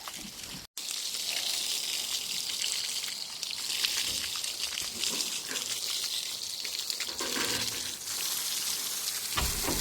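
Garden hose spraying water onto a camel in a steady hiss that starts just under a second in.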